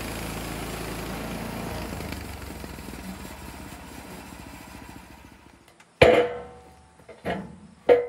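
Small gasoline engine of a Harbor Freight portable bandsaw mill running, then dying away over a few seconds. Near the end come three sharp, ringing metal clanks about a second apart, the first the loudest.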